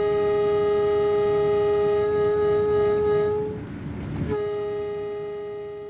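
Train horn sounding two long blasts: the first lasts about three and a half seconds, the second starts just after four seconds in and fades away, over the low rumble of the moving train.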